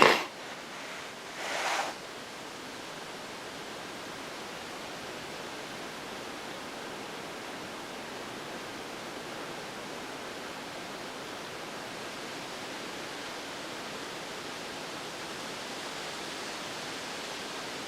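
Steady, even outdoor hiss, with a short sharp noise right at the start and a brief rustle about a second and a half in.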